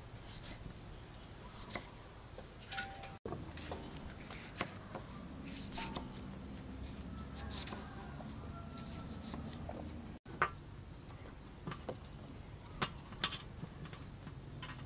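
Kitchen knife slicing firm green tomatoes on a wooden chopping block: irregular sharp taps as the blade goes through and meets the wood. Short high chirps, typical of small birds, recur in the background.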